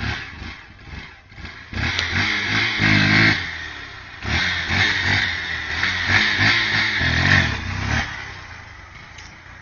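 Motorcycle engine revving as the bike rides past, in two loud stretches that rise and fall in pitch, then fading away near the end.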